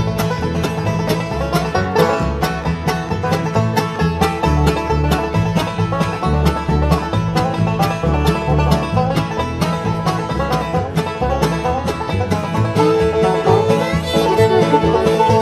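A bluegrass band playing: fast banjo picking over guitar, a bass keeping a steady beat, and a fiddle. Near the end a higher note is held for a few seconds.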